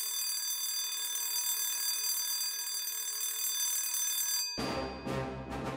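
A radio magazine's example jingle opening with an electric school bell ringing steadily for about four and a half seconds. The bell cuts off suddenly as music comes in near the end.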